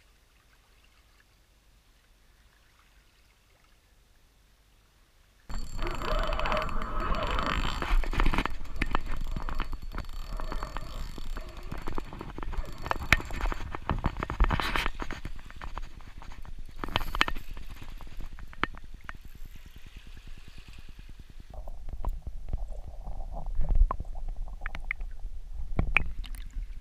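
Near silence for about five seconds, then wind rumbling on the microphone and water sloshing at a rocky shoreline, with scattered knocks and scrapes throughout.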